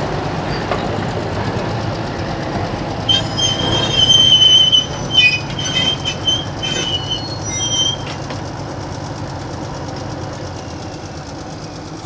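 Freight train moving along the track with a steady low rumble. From about three seconds in, its wheels squeal against the rail in a string of high screeches that stop a little past the middle.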